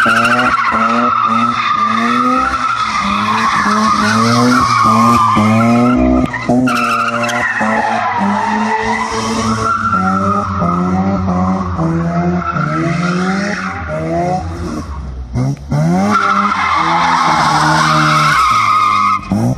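1985 Mazda RX-7's 12A two-rotor rotary engine revving hard, its pitch climbing and falling again and again, while the tyres squeal through long slides in a burnout-style skid. The revs drop briefly about six seconds in and again near fifteen seconds.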